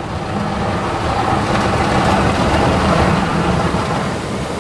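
Rotating car-wash side brushes scrubbing against the car's body and windows with spraying water, heard from inside the car: a rumbling swish that swells through the middle and eases off near the end.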